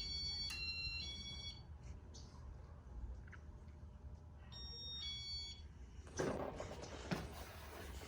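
Electronic beeps from a Casablanca ceiling fan's control: a quick run of three beeps at different pitches at the start, and two more about five seconds in, over a steady low hum. Rustling and knocking follow near the end.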